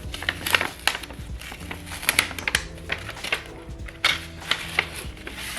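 Paper wrapping rustling and crinkling in a quick run of sharp crackles as a small gift packet is unwrapped by hand, with soft background music underneath.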